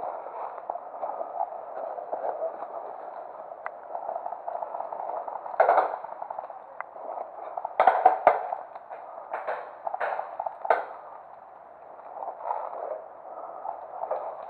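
Airsoft guns firing: about half a dozen sharp, separate cracks spread over several seconds, over a steady rustling noise.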